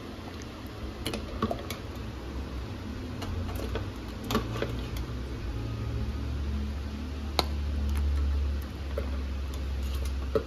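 A ladle serving thick mutton nihari from the pot into a dish: scattered clinks and knocks of metal against the pot and dish, over a low steady hum.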